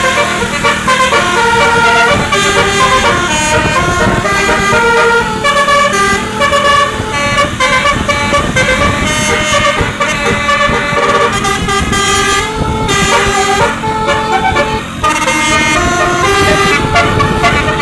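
Basuri telolet horn on a tour bus playing a tune, sustained notes that step up and down in a melody, over a low rumble.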